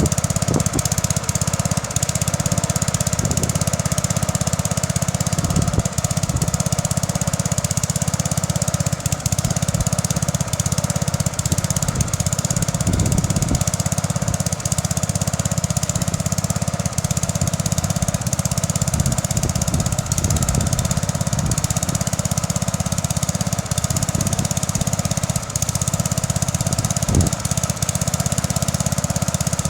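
Bolens 1050 garden tractor's single-cylinder engine running steadily under load while pulling a plough, with a few short knocks or clatters over it.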